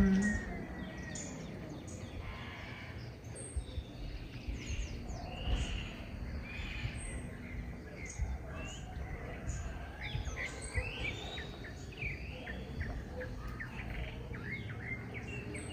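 Several birds chirping and calling in a dawn chorus, with some short rising and falling whistled notes, over a steady low background rumble.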